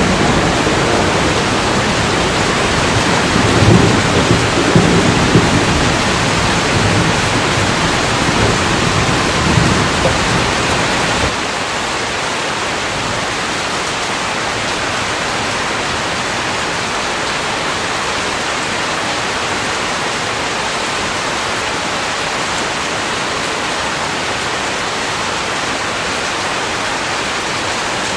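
Steady heavy rain with thunder rumbling through the first part. About eleven seconds in, the rumble cuts off abruptly, leaving only an even rain hiss.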